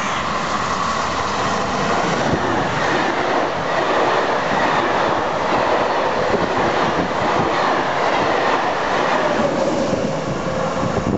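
A train running along the track, with steady rolling noise and a faint high whine that slides lower near the end.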